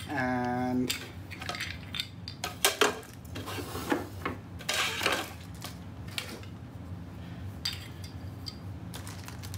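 Parts of a flat-pack printer cart, its shelf panels and legs, knocking and clattering together as they are moved around by hand. Scattered clicks and knocks, the sharpest pair about three seconds in.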